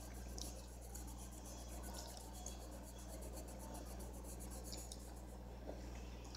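A pencil scratching and shading faintly on the paper of a coloring-book page, over a steady low hum.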